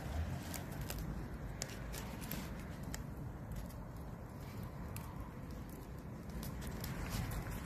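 Banana leaves crinkling and rustling in the hands as a leaf-wrapped parcel is tied shut with a thin bamboo strip, giving scattered short, sharp crackles. A low steady rumble runs underneath.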